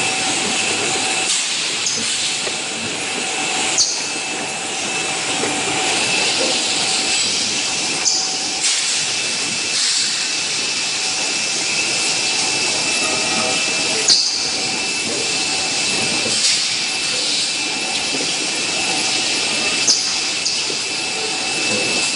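Bottle filling and capping line running: a steady mechanical hiss with two faint steady tones, broken by short sharp clicks every few seconds.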